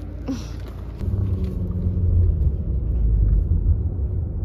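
Low, steady rumble of car road noise that grows louder about a second in, with a brief rustle near the start.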